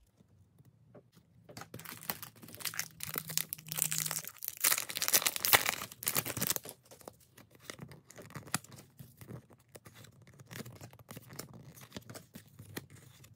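A foil trading-card pack wrapper being torn open and crinkled, crackling for about five seconds from shortly after the start. After that come softer clicks and rustles of the cards being handled and flipped through.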